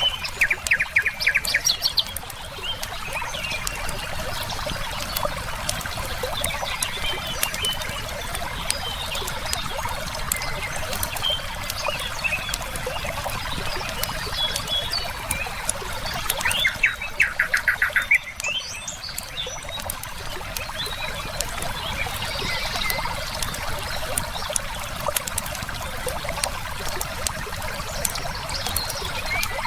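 Steady rush of flowing river water mixed with frequent small crackles of a wood fire and scattered songbird chirps. A bird gives a rapid trill of evenly spaced notes twice: near the start and a little past halfway.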